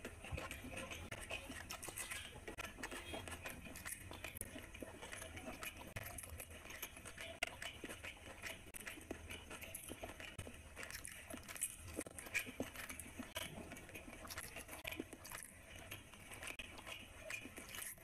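Eating by hand: fingers tearing fried luchi and squishing it through chicken liver curry on a plate, with chewing. Irregular small wet clicks and squelches throughout.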